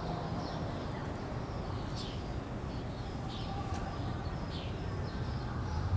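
Birds chirping: short, high, falling chirps every second or so, over a steady low background rumble.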